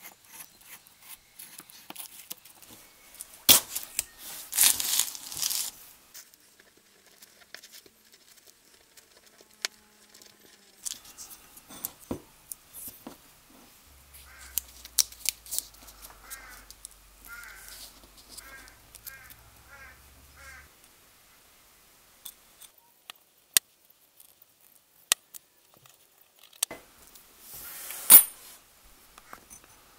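Blue painter's masking tape pulled off the roll and torn, with small clicks and rubbing as it is pressed around the rim of a metal gear wheel. The loudest tearing comes about four seconds in and again near the end.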